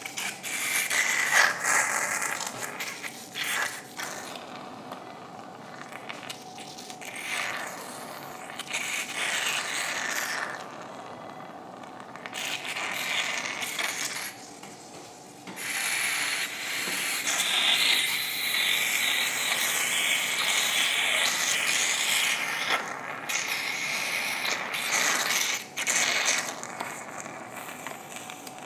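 Surgical suction drawing blood out of a dog's opened nasal cavity while it bleeds heavily during a rhinotomy. The hiss comes and goes in spells, and the longest runs from about halfway through to near the end.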